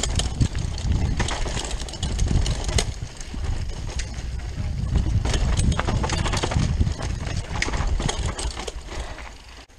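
Rockrider mountain bike riding fast down a dirt forest trail: wind buffeting the camera microphone in a heavy low rumble, over many quick clicks and rattles from the chain, frame and tyres hitting roots and bumps. The noise eases just before the end as the bike slows.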